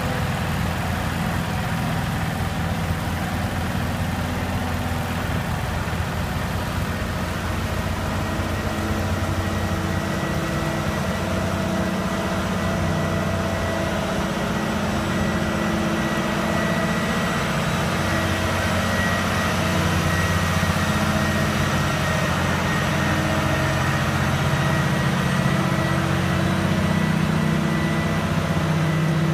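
Heavy-haulage truck diesel engines running steadily at low revs, a deep continuous engine sound with a faint steady whine above it, growing a little louder in the second half.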